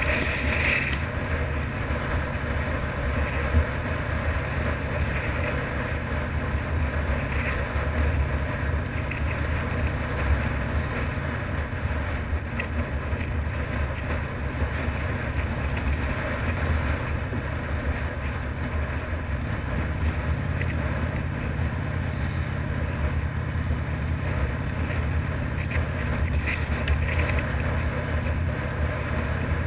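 Harley-Davidson FXRDI's V-twin engine running steadily under way, heard from the moving motorcycle. The engine note shifts about twenty seconds in.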